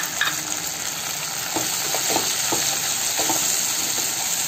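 Onion and spice masala sizzling in oil in a kadai over a low flame, stirred with a wooden spatula that scrapes and knocks against the pan several times.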